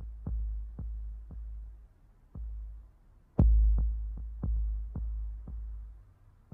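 Tense, sparse background music: deep sub-bass booms with decaying tails, the loudest about three and a half seconds in, under sharp ticks about twice a second, like a slow heartbeat or clock.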